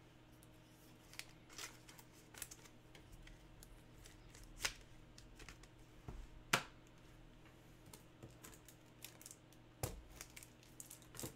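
Faint, scattered taps and clicks of trading cards being handled and set down on a card box on a table, the sharpest tap a little past the middle.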